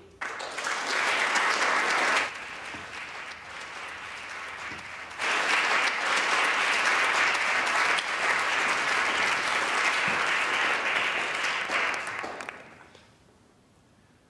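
An audience of schoolchildren clapping. The applause eases off after about two seconds, swells again a few seconds later, then dies away about a second before the end.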